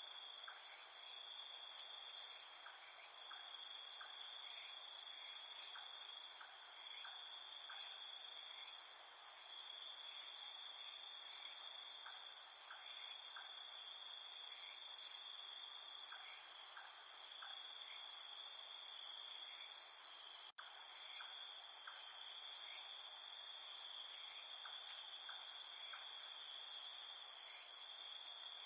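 Steady chorus of crickets trilling, a continuous high-pitched ringing, with faint irregular short ticks underneath. The sound cuts out for an instant about two-thirds of the way through.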